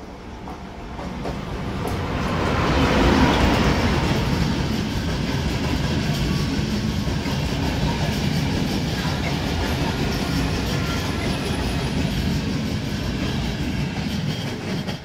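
Electric-locomotive-hauled passenger train passing without stopping. The locomotive builds to its loudest about three seconds in, then the coaches follow with a steady rumble of wheels on the rails, which drops away near the end.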